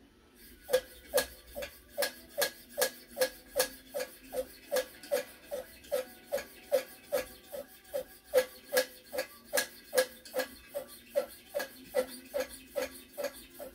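Hand air pump on a homemade kerosene pressure lantern built from a 2-litre fire-extinguisher tank, stroked steadily at about two and a half strokes a second; each stroke is a sharp click with a short falling squeak. The fuel tank is being pressurised after the alcohol preheat, and with little kerosene in it, it takes many strokes.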